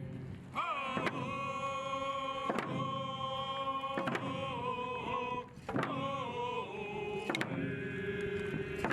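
Traditional song: voices singing long held notes that slide into pitch, with a sharp beat struck about every second and a half.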